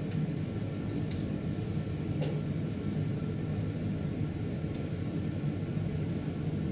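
Steady low mechanical rumble and hum of a tower crane's machinery, heard inside the operator's cab, with a few faint clicks.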